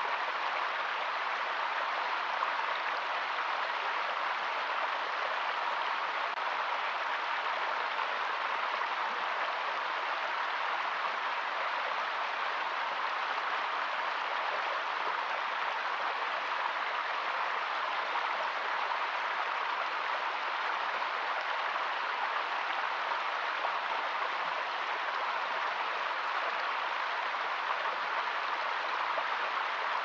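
Small stream running over rocks in little cascades: a steady, even rush of water that never changes.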